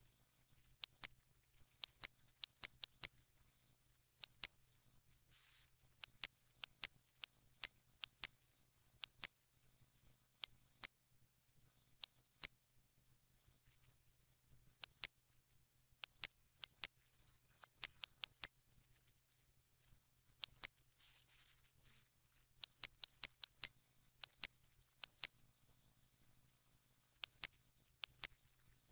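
Computer mouse clicking: sharp single clicks at uneven intervals, often in quick pairs or short runs, over a faint steady low electrical hum.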